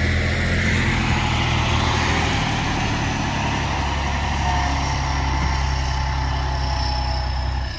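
Delivery truck's engine running steadily close by, a low even hum with a faint whine above it. The level drops suddenly at the very end.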